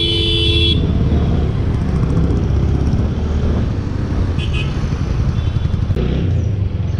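TVS Apache motorcycle engine running with a steady low rumble of engine and wind as it rides through traffic. A vehicle horn sounds at the start and stops about a second in, and a short high beep comes about halfway through.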